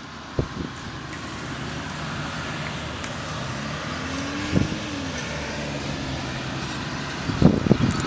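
Steady rumble of city street traffic with wind, an engine tone rising and then falling about four and a half seconds in, and a few short knocks on the microphone near the end.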